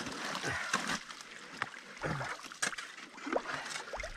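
A shovel working in an ice hole, scooping broken ice chunks and slush out of the water: irregular splashes and sloshing mixed with the scrape and knock of ice.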